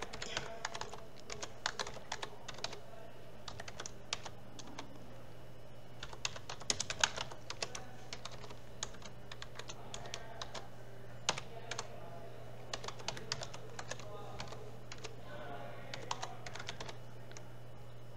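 Typing on a computer keyboard: key clicks in short bursts with pauses between them, over a steady low hum.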